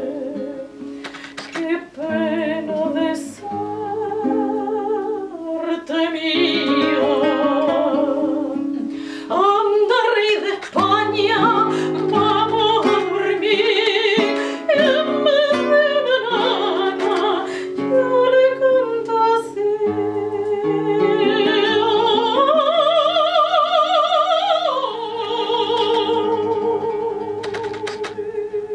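Operatic female voice singing with wide vibrato to a classical guitar accompaniment of plucked notes. Past the middle she holds a long high note, then settles on a lower sustained one.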